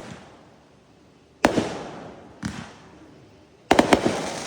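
Fireworks going off: a sharp bang about one and a half seconds in, a weaker one a second later, then a quick run of about four bangs near the end, each trailing away in a rolling echo.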